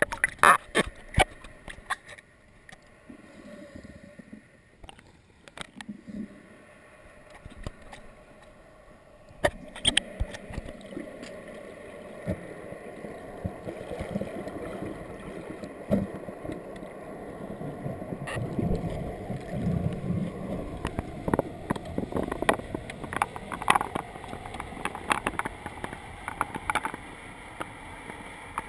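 Muffled underwater noise picked up through a camera's waterproof housing: sharp clicks and splashes in the first second, then a steady low rush of water with scattered clicks and knocks.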